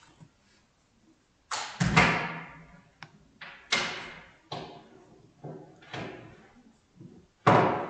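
A series of about seven loud bangs at irregular intervals, each struck sharply and dying away over roughly a second.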